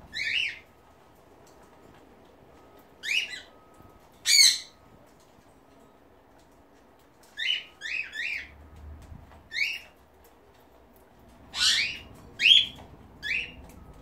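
Pet cockatiels calling: about ten short, sharp squawks, some on their own and three in a quick run about eight seconds in.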